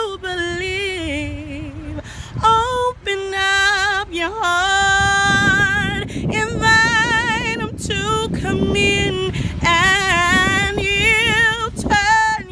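A woman singing solo and unaccompanied in gospel style. She holds long notes with wide vibrato and slides between pitches in runs, with short breaths between phrases. A low rushing noise sits beneath the voice through the middle few seconds.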